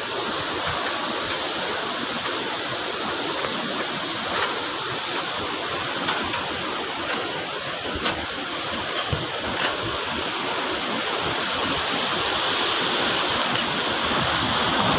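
Floodwater rushing steadily through the open radial gates of a dam spillway.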